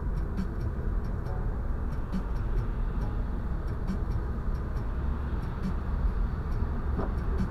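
Steady road and tyre noise of a car driving on a wet road, heard inside the cabin through the dashcam's microphone, with faint irregular ticks about once or twice a second.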